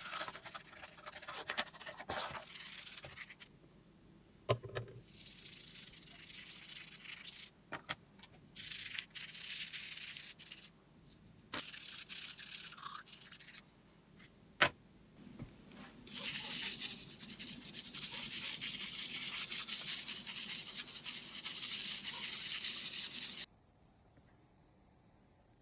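Repeated bursts of scrubbing, a few lasting up to several seconds, broken by a few sharp clicks. The longest burst stops abruptly near the end.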